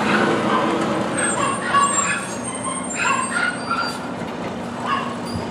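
Automated side-loader garbage truck's diesel engine running as it pulls up and stops at the curb, louder at first and then settling. Short high-pitched chirps sound through the middle.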